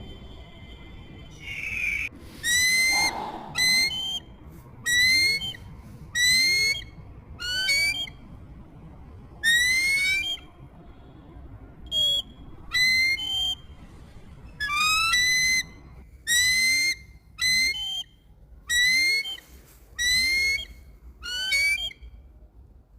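Kites calling: a long series of shrill, whistled calls, each a quavering note, repeated about every second, starting about two seconds in.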